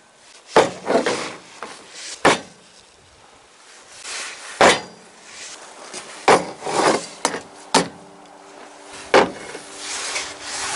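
A series of sharp knocks and cracks, about ten of them at irregular intervals, with rustling and handling noise between.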